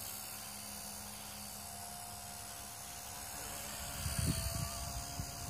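Blade Nano S2 micro RC helicopter's electric motor and rotors whining steadily while it flies, the pitch wavering slightly. Low rumbling bumps join near the end.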